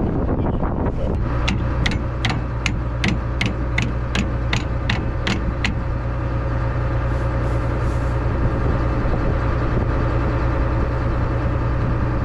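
A vehicle engine idling with a steady low hum. Over the first half there is a run of about a dozen sharp clicks, evenly spaced at roughly three a second, which then stop.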